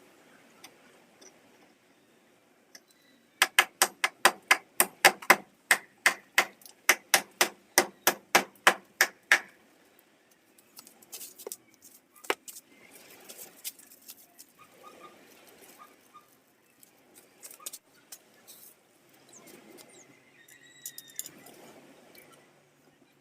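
Hammer blows on a nail driven into hardwood to make a pilot hole for a screw: a steady run of about twenty sharp strikes, roughly three a second, lasting some six seconds, followed by scattered lighter knocks and clicks.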